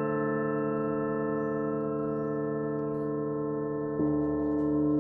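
Russian Orthodox church bells ringing, their overlapping tones humming on and slowly fading. About four seconds in, a lower bell is struck and its tone joins the ringing.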